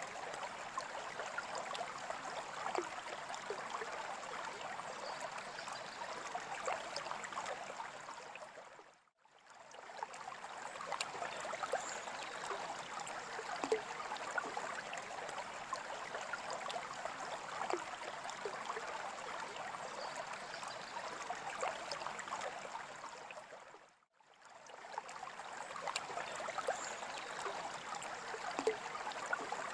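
Running water trickling and burbling steadily with small droplet clicks. It fades out briefly and comes back twice, about 9 seconds in and again near 24 seconds.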